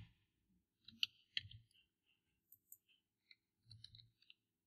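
A few faint clicks of a computer keyboard and mouse while working shortcut keys: two clearer clicks about a second in, then a few fainter ticks near the end.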